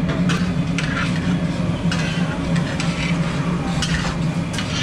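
Metal spatula and ladle scraping and clinking on a large iron tawa as a heap of frying egg and mince is stirred, with a sharp clink about once a second. A steady low hum runs underneath.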